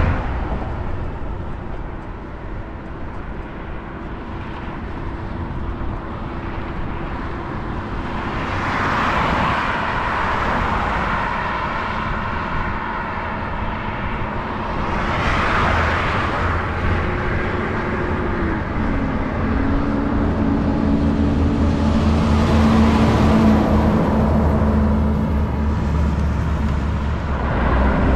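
Road traffic passing on a highway: vehicles swell up and fade away about three times over a steady low road rumble, and an engine hum slides down in pitch and then holds a steady tone through the second half.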